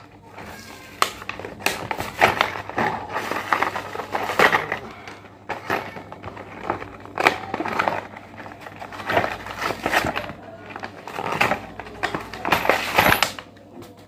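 Plastic packaging and bubble wrap being handled and pulled open, crinkling and crackling in repeated bursts with short pauses between.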